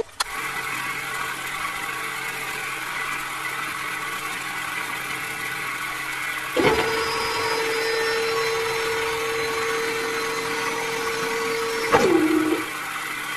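Small DC motors of a homemade miniature borewell drilling rig running with a steady whine over a hiss. The whine drops in pitch near the end, and the sound changes abruptly at edit cuts.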